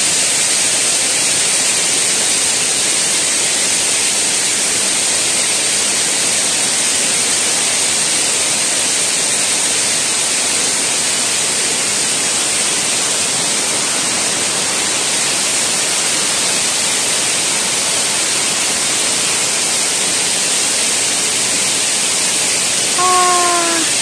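Steady rushing of a tall waterfall, about a 50 m drop, heard close to its foot. A brief voice sound with falling pitch near the end.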